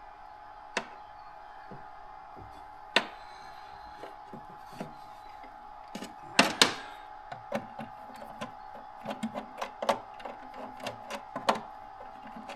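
Scattered light clicks and taps of hands working spindle cable wires into a VFD's terminals, loudest about three seconds in and twice around six and a half seconds, over a faint steady high hum.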